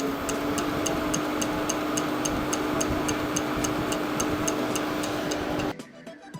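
Inoue Seisakusho vacuum planetary mixer running: a steady machine hum whose motor tone rises briefly as it comes up to speed, then holds. It cuts off suddenly near the end.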